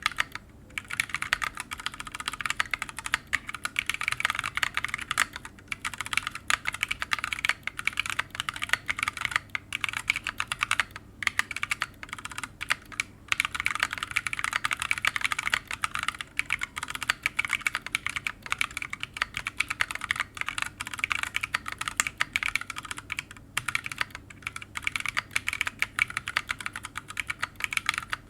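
Continuous fast typing on a mechanical keyboard with Shogoki tactile switches in an open-case Reviung41 40% board with an FR4 plate, no sound dampening and PBT keycaps: dense clicky keystrokes with a few brief pauses.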